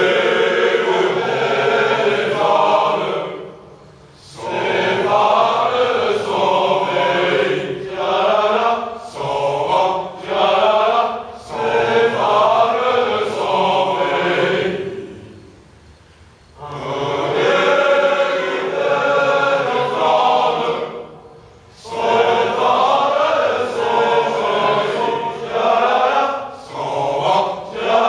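A large group of young men singing a traditional song together in chorus. The singing goes in phrases, with three short breaks between them.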